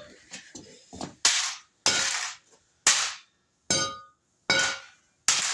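A broken plastic toy pump shotgun being smashed: about six sharp, hard strikes, roughly one every second, each with a short clattering crack of breaking plastic.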